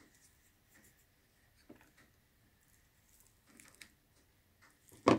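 Faint squishing and light clicks of a spoon working mashed purple sweet potato into a frothy egg batter in a bowl, with one sharp knock near the end.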